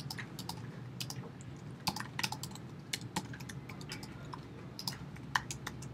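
Typing on a computer keyboard: a run of quick, irregularly spaced key clicks.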